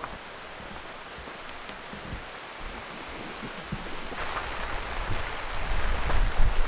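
Steady rain falling, growing louder about four seconds in, with a low rumble building toward the end.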